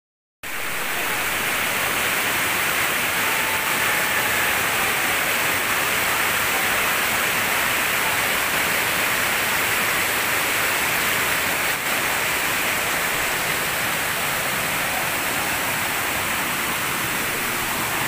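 Waterfall cascading over large boulders into a rocky stream: a steady, loud rushing of white water.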